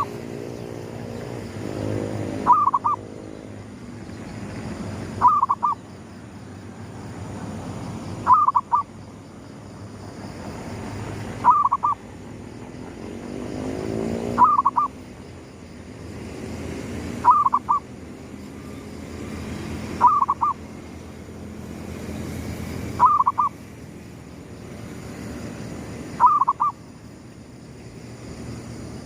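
Zebra dove (perkutut) cooing, a short phrase of a few notes repeated about every three seconds, over a low background rumble.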